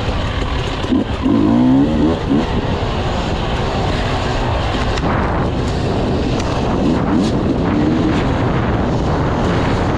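Enduro motorcycle engine running under load on a dirt trail, its revs rising and falling with the throttle, over steady road and wind noise.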